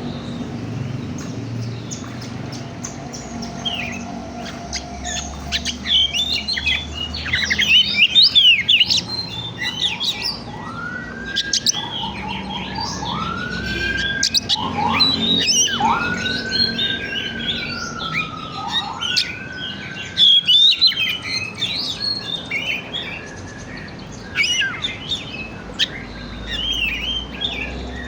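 Oriental magpie-robin (kacer) singing a long, varied song of quick chirps and trills, with four long slurred whistles that rise and then fall in the middle of the song.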